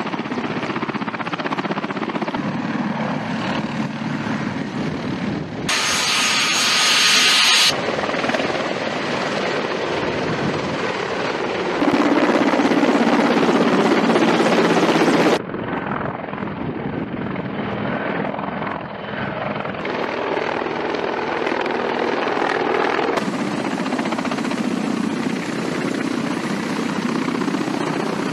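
Military helicopters, Mi-8 and Mi-24 types, running: loud rotor and turbine noise as they sit on the ground, lift off and fly past. The sound is made of separate clips that cut abruptly from one to the next every few seconds.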